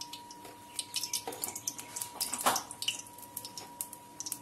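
Refined vegetable oil crackling in a hot kadai, with scattered small irregular pops and one louder pop about two and a half seconds in.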